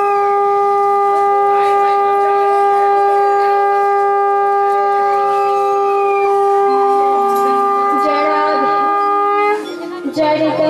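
A conch shell (shankha) blown in one long, steady, unbroken note that stops about a second before the end.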